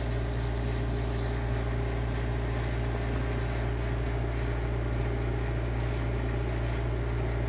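A steady, unchanging low hum with a faint hiss over it, like a running fan or appliance.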